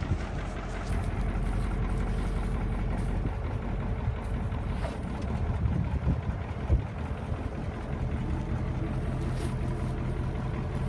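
Caterpillar 3208 V8 diesel of a 1987 Ford LN 8000 truck idling steadily.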